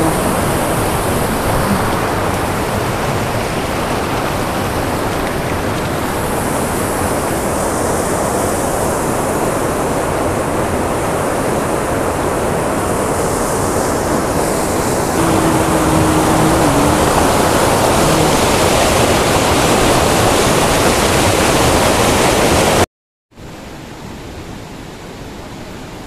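Waterfall pouring through a rocky gorge into a pool: a loud, steady rush of falling water. Near the end it cuts off for a moment and comes back much quieter.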